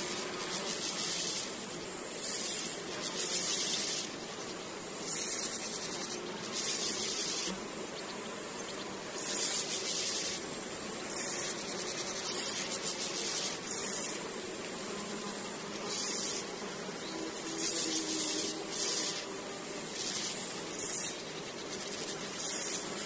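Grasshoppers chirring in the grass: short, high, hissing bursts of song repeated every second or two, over a steady outdoor background.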